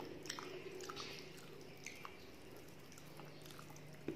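Eating sounds: soft wet clicks and smacks of chewing, with fingers squishing through khichuri on a steel plate as the next mouthful is gathered.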